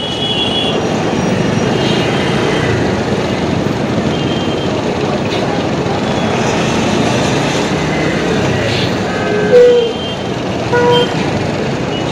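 Steady traffic noise of vehicles running in a stopped jam. Near the end come two short vehicle horn honks, the first of them the loudest sound.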